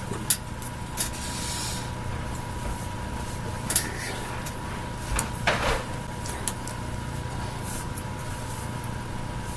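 A handful of sharp taps and slaps, scattered and irregular, from hands striking each other and the body while signing American Sign Language. They sit over a steady hum with a thin steady tone.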